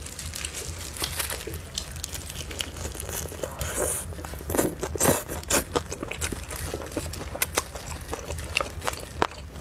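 Close-up eating of roast chicken wings: bites, chewing and meat being torn from the bone, with the crinkle of disposable plastic gloves, heard as a string of short crackles and clicks, busiest about halfway through.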